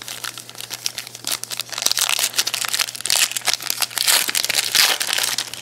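A 2011 Donruss Elite football card pack being torn open, its foil wrapper crinkling and crackling in a dense run of small snaps that gets louder from about two seconds in.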